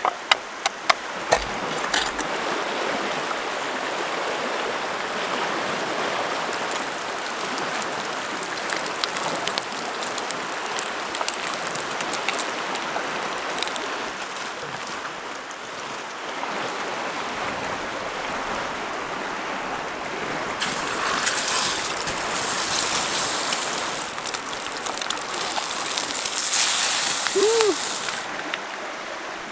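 Bacon sizzling in a frying pan, a steady hiss; in the last stretch eggs fry in a lidded pan over campfire coals and the sizzle grows louder and brighter before it cuts off. A run of sharp clicks opens it.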